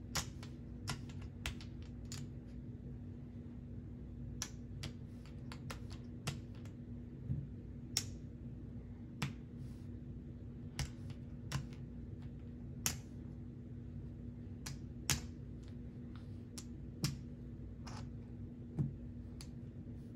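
Casino chips clicking sharply against each other as they are stacked and counted out while coloring up, in irregular single clacks, over a faint steady low hum.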